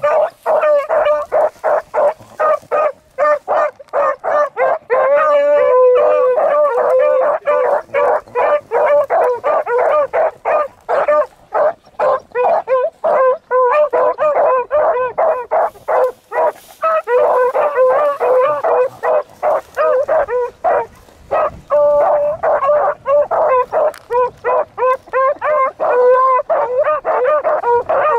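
A brace of beagles giving tongue: quick repeated chop barks, about four a second, broken by a few longer drawn-out bawls. It is the hound music of beagles running a rabbit's scent line.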